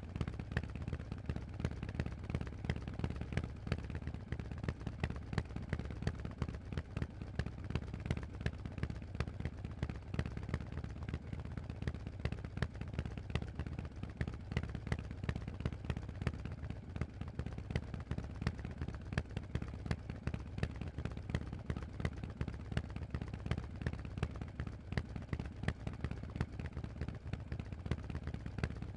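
Harley-Davidson Forty-Eight's air-cooled 1200 cc V-twin running through a Vance & Hines exhaust: a steady stream of sharp, rapid exhaust pulses.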